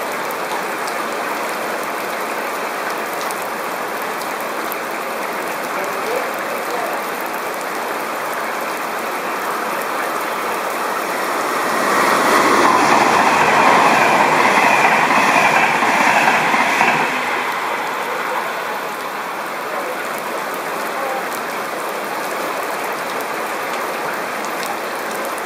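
Heavy rain pouring down steadily, with a louder rushing surge for about five seconds in the middle.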